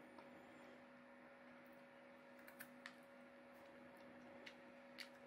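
Near silence: a faint steady hum, with a few soft clicks from chewing chocolate, twice around the middle and once near the end.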